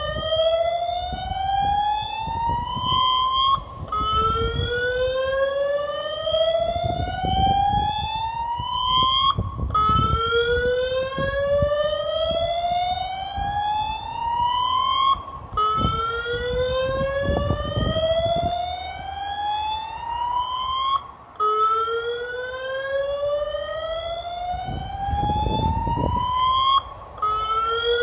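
Outdoor warning (tornado) siren sounding a test, its tone repeatedly rising slowly over about six seconds, breaking off and starting low again. There is a low rumbling noise underneath.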